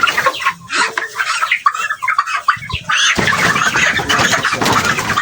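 A flock of chickens in a poultry house clucking and calling over one another in a dense, continuous chatter, with a rustling noise joining about three seconds in.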